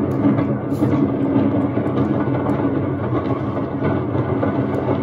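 Wooden roller coaster train rumbling steadily along its track.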